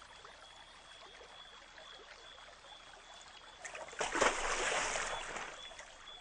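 A splash into water about four seconds in, from a rocket frog landing in a pool, followed by water sloshing and trickling as it settles. Before it, faint night ambience with a thin steady high tone.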